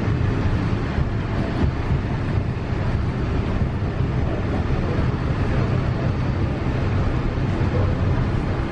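Steady low rumble inside a Walt Disney World monorail car as it runs along the elevated beam, heard from within the cabin.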